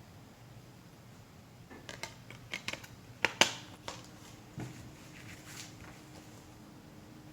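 Handling of a plastic Blu-ray case and its contents: a few small clicks and rustles, then one sharp snap about three and a half seconds in, like the case's clasp or hub, and a softer knock a second later.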